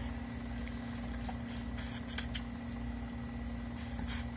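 Close-up eating sounds: a person chewing and biting into a crisp piece of food, with scattered soft crunches and clicks and a short cluster near the end, over a steady low hum.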